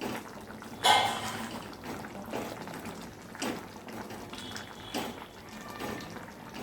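A spoon stirring a thick, wet bottle gourd and tomato curry in a pan, with separate wet scraping strokes about once a second, the loudest about a second in.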